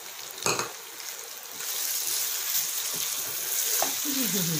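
Chicken with curry leaves sizzling in a frying pan while being stirred with a wooden spatula; a single knock about half a second in, and the sizzle grows louder about one and a half seconds in as the stirring starts.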